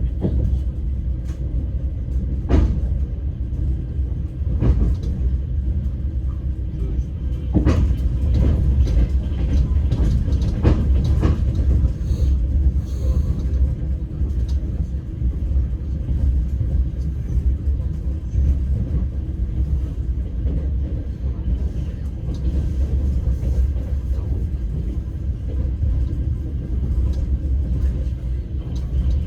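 Passenger train heard from inside the carriage: a steady low rumble of the wheels on the track, with a few sharp clacks from the running gear.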